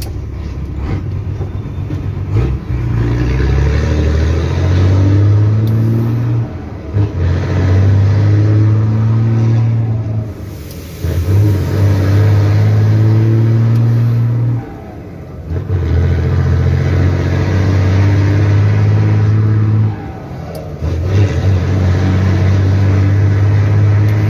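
Mercedes-Benz 1620 truck's six-cylinder diesel engine pulling hard under load, heard from inside the cab, with a short drop in sound at each of about four gear changes.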